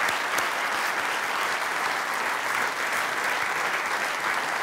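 Large theatre audience applauding, a dense, steady clapping that holds an even level.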